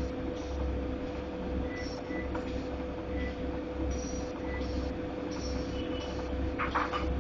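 Godrej fully automatic washing machine running with an unusual noise: a steady hum over a low, pulsing rumble, with a few sharp rattling knocks near the end.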